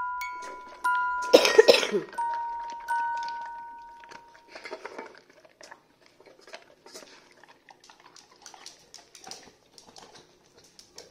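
A few chime-like notes, much like a glockenspiel, ring and fade over the first four seconds, with a loud short burst of noise about a second and a half in. Then a golden retriever eats from a stainless steel bowl: soft, irregular clicks and licks of chewing and lapping.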